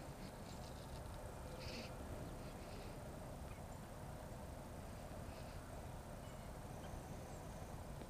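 Faint outdoor quiet: a steady low rumble with a few short, high chirps of distant birds.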